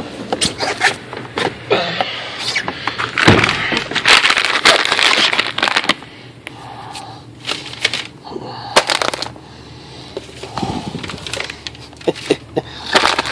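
Crinkling and crackling of a sealed plastic cookie bag being handled: a burst of rustling a few seconds in, then scattered crackles.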